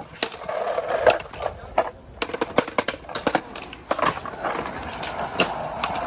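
Skateboard wheels rolling on pavement, with a series of sharp clacks and pops of the board during an attempt at a fakey kickflip.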